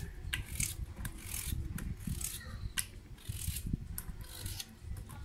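Small knife slicing a raw peeled potato held in the hand into rounds: a string of crisp, irregular cuts, about two a second.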